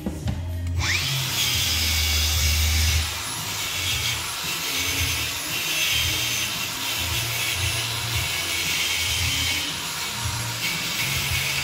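Handheld angle grinder spinning up with a rising whine about a second in, then running steadily against metal as it cleans rust and grime off brake caliper slider pins.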